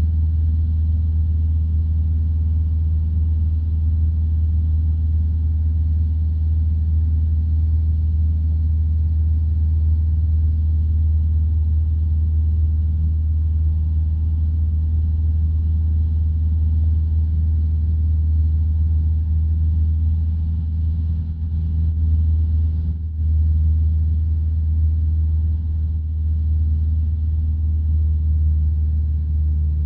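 Light aircraft's single piston engine droning steadily in flight, heard from inside the cockpit. The level dips briefly a little after twenty seconds in.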